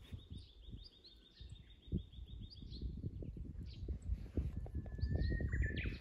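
Japanese bush warbler (uguisu) singing: a long steady whistle from about four and a half seconds in that breaks into a quick, higher flourish near the end. Before it, another bird's rapid, even high trill runs for about three seconds, with scattered chirps. Low rustling and thumps of footsteps in dry grass sound underneath.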